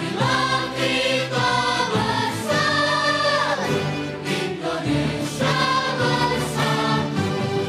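Children's choir singing in unison over a steady low accompaniment.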